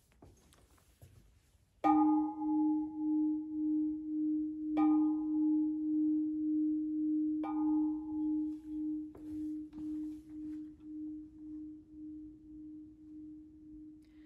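A singing bowl struck with a padded mallet three times, rung to open worship. Its single low tone rings on with a steady wavering pulse of about two beats a second and slowly fades away.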